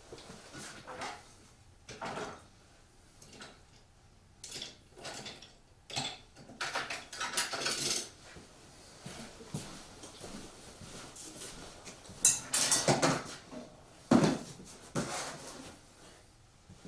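Scattered clinks, knocks and clatter of hard objects being handled, like tools being picked up and set down, with quiet gaps between them.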